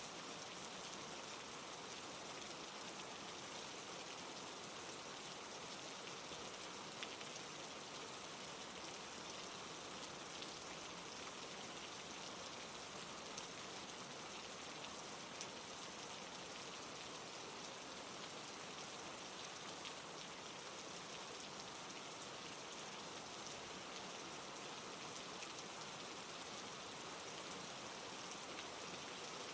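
Steady, soft rain falling: an even patter of drops with a few slightly louder ones now and then.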